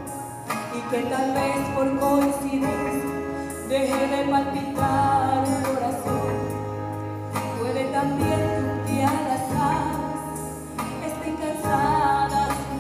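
A woman singing into a handheld microphone over instrumental accompaniment, amplified through a PA system.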